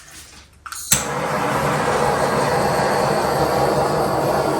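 A hand-held electric hot-air blower switched on about a second in and running steadily, a loud even blowing noise with a low motor hum. It is heating poured acrylic paint to bring up cells.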